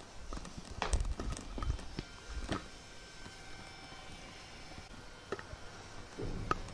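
A few scattered light knocks and footsteps on a tiled floor as someone moves around and handles a 3D printer's frame. The loudest knock comes about a second in, and there are a couple more near the end.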